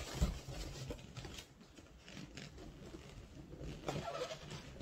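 Inflated latex balloons rubbing and squeaking against each other as they are twisted and tied together, in soft, irregular squeaks with a short pitched squeak near the end.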